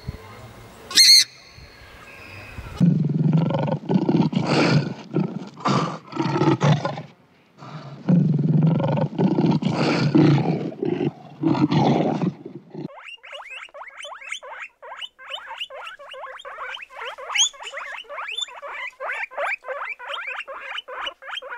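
A swamphen gives one short nasal honk. Then a lion roars in two bouts of deep, rough grunting calls. After that comes a fast, even run of short high chirps, four or five a second, from a small furry animal.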